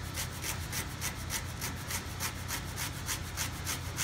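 Fresh horseradish root being grated by hand on a flat metal grater, the root rasping against the blades in quick, even strokes, about six a second.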